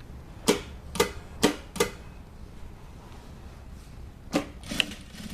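Sharp mechanical clacks from a single-needle industrial sewing machine being handled, four in quick succession and then two more near the end, over a low steady hum.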